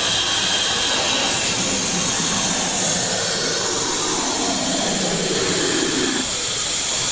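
Lollipop game vending machine's motor running: a loud, steady airy rush with a thin high whine that steps down in pitch about a second and a half in.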